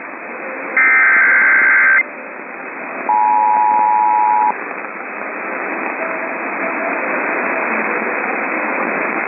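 Emergency Alert System activation heard over AM radio. First a burst of the SAME digital header, a harsh data warble, which stops about 2 seconds in. Then a short burst of the two-tone EAS attention signal, about a second and a half long, and after that steady radio hiss.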